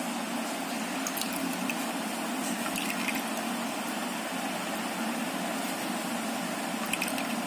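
Plastic spoon pressing and scraping wet blended spinach paste through a plastic strainer, with soft squelching and a few faint scrapes as the juice drips into a steel tumbler below, over a steady background hum.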